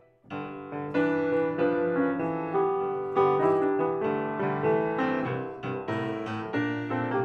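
Closing piano music: a melody with chords of struck notes that ring and fade. It comes in about a quarter second in.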